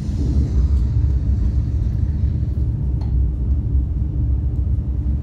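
Deep, steady rumble played through an exhibit's sound system as a volcano sound effect.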